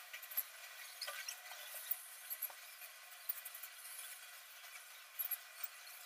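Faint scattered clicks and scratches from cockatiels moving about their cage, claws and beaks on wooden perches and wire bars.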